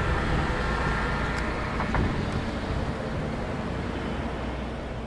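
A train's running noise fading as it moves away, a steady low rumble with a faint high whine over the first two seconds and a single clack about two seconds in.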